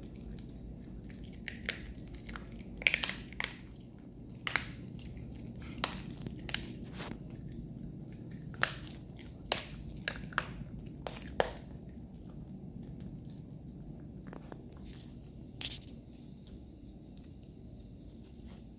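A Chihuahua chewing and crunching a chicken bone: irregular sharp cracks, the loudest about three seconds in, thinning out after about twelve seconds.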